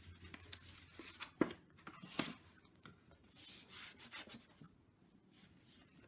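Faint, scratchy strokes of a fine paintbrush on a small canvas, with two sharper taps about one and a half and two seconds in.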